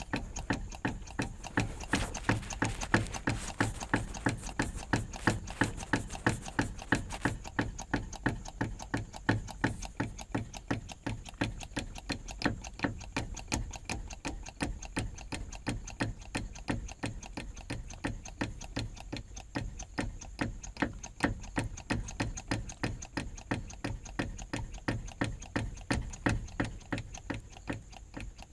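Diesel filter hand primer pump being pushed over and over, clicking about three times a second, to pull diesel through to an injection pump that had run empty.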